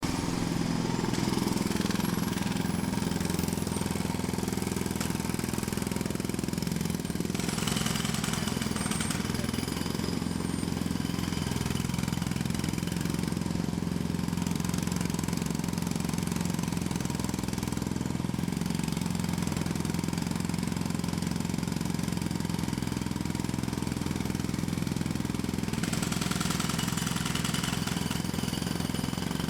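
Jackhammer hammering continuously, a rapid chatter over a steady low drone, growing harsher and brighter for a few seconds twice.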